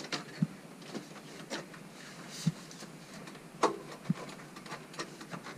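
Plastic dashboard trim being worked into place by hand: scattered clicks and a few dull knocks, the sharpest click a little past the middle, with a brief scrape just before halfway.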